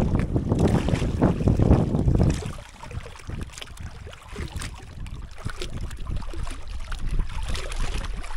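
Wind buffeting the microphone, loud for the first couple of seconds, then dropping away to water lapping and splashing against a moving bamboo raft.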